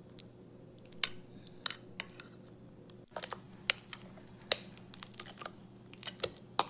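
Metal fork tapping and scraping against a ceramic bowl as mashed banana is stirred and scraped out into a stainless steel bowl: a string of irregular sharp clicks, about a dozen.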